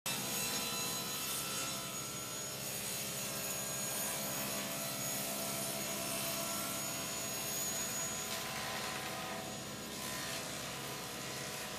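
A woodworking power tool running steadily on wood, with a continuous motor hum and the rasp of cutting or sanding.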